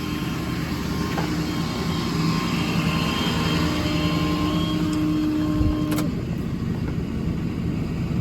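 Engine-driven VMAC air compressor running on a 6.7 Power Stroke diesel truck, a steady mechanical hum over the diesel's running. One of its tones cuts off with a click about six seconds in.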